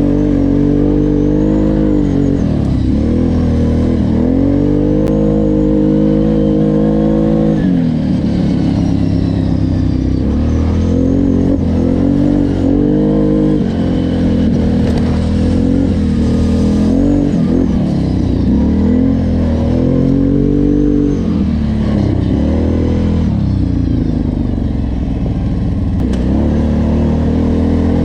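Off-road vehicle engine running hard while being ridden. The pitch climbs, drops back and climbs again over and over as the throttle is worked.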